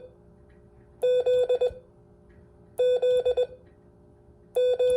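Morse code sidetone sending the letter Z (dah-dah-di-dit) three times, each letter about two seconds apart, the last one starting near the end.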